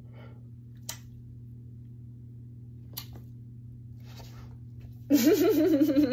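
A dog whining: a loud, wavering, unbroken whine begins about five seconds in, after a stretch where only a steady low hum and two faint clicks are heard.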